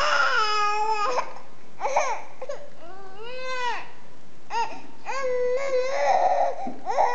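Six-month-old baby fussing and crying in a string of short wails, several arching up and down in pitch, with brief breaks between them.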